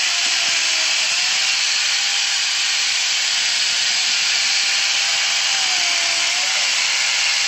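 Electric angle grinder converted into a mini chainsaw, running with its chain cutting through wood. The motor's whine dips in pitch twice, near the start and about six seconds in, as the chain bites harder into the wood.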